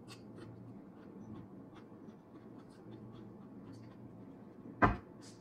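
Close-mic'd eating sounds: chewing and crunching on a bite of cucumber, with many small mouth clicks. A single loud thump comes near the end.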